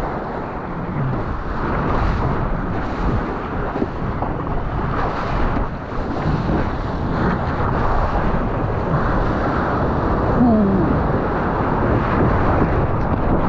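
Wind buffeting a surfboard-mounted GoPro's microphone, mixed with seawater rushing and splashing around the board as it moves through the surf.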